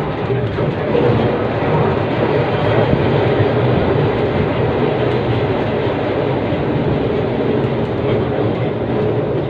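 Steady running noise of a Sydney C-class single-truck tram heard from inside its wooden saloon with the windows open: wheels rumbling and rattling on the rails as it travels.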